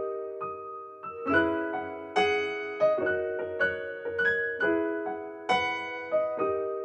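Background piano music: gentle single notes and chords struck one after another, each ringing and fading away.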